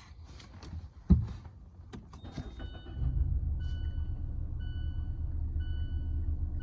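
Mazda 3 engine starting about three seconds in and idling with a steady low rumble, on a car with a misfire that shakes it at idle. A sharp click comes about a second in, and a high beep repeats about once a second over the idle.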